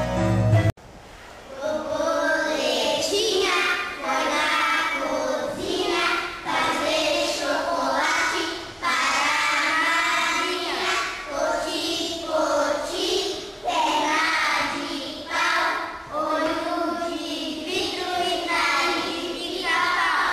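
A short bit of music cuts off under a second in; then a group of children sing together in phrases of a second or two.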